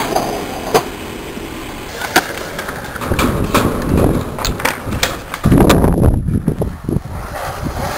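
Skateboard on concrete: the wheels rolling with a rough rumble, and a series of sharp clacks as the board strikes the ground. The rolling is loudest about two-thirds of the way in.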